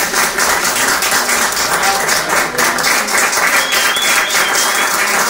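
Small audience applauding, with one pair of hands clapping close to the microphone over the general clapping.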